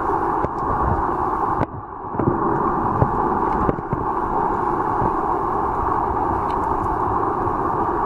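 Muffled underwater noise in shallow seawater: a steady dull rush with a few faint clicks, dipping briefly about two seconds in.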